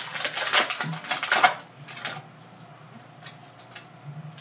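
Plastic trading-card pack wrapper crinkling and crackling as it is torn open by hand for about two seconds, then a few light crinkles as the pack is handled.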